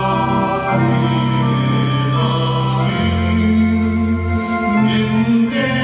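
A Malayalam hymn sung to organ accompaniment, the organ holding long steady bass notes beneath the voices.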